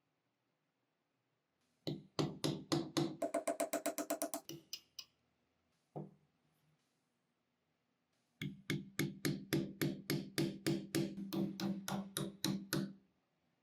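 Small hammer tapping a pin punch, driving out a pocket knife's pins; each light strike rings briefly on the metal. A run of quickening taps for about three seconds, a single tap, then about five seconds of steady taps, roughly four or five a second.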